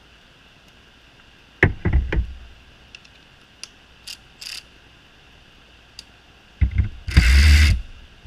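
A cordless 3/8-inch drive ratchet wrench buzzes briefly for under a second near the end as it drives a nut on a bolt in a vise. Before that come a few sharp metal clicks as the socket is handled and fitted onto the nut.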